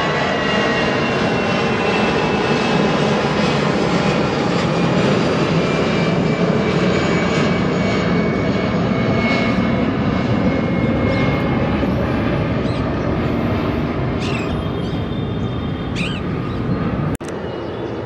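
Airbus A320-214's CFM56 jet engines at takeoff power on the climb-out: a broad, steady rush with a thin whine that falls in pitch, slowly fading as the jet climbs away. A few short high sounds come near the end, then the sound cuts suddenly to a quieter, more distant jet noise.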